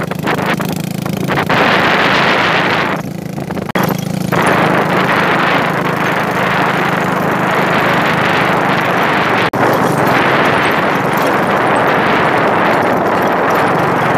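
Small motorcycle running steadily along a rough gravel road, its engine hum under heavy wind noise on the microphone. The sound eases for a moment about three seconds in.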